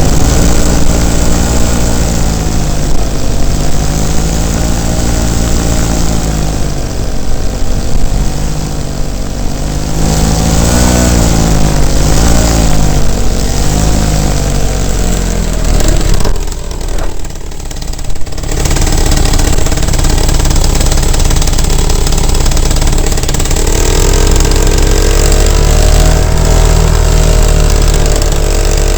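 Paramotor engine and propeller running, the pitch wavering up and down with throttle changes. The engine drops away for about two seconds past the middle, then picks up again and settles at a steadier, higher note from a few seconds before the end.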